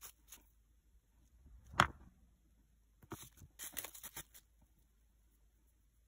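A single sharp knock about two seconds in, then plastic cling film crinkling in short crackles as it is handled.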